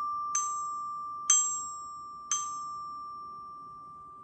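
Student bell kit (glockenspiel) with its D bar struck by a mallet: three even strokes about a second apart, following one just before, each bright note ringing on and the last fading slowly.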